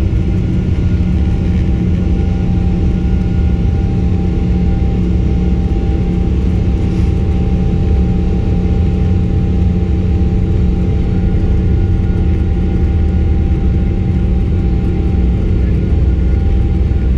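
Airliner cabin noise while taxiing: the jet engines run steadily, heard as a low rumble with a few constant hums over it, neither rising nor falling.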